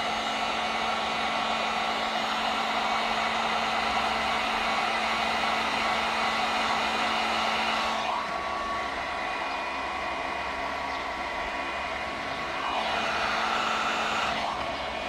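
Handheld hot-air blower running with a steady rushing noise while it heats the vinyl gun skin so the film softens and conforms. The sound shifts about halfway through and swells briefly near the end.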